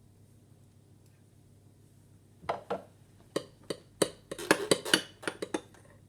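A utensil clinking and knocking against a dish while slime is being mixed: a run of irregular sharp clinks that starts a couple of seconds in and comes quicker and louder towards the middle.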